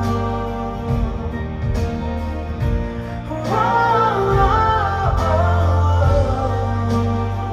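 Live concert music: a male singer singing over band accompaniment through a large hall's sound system. The voice line grows stronger about halfway through.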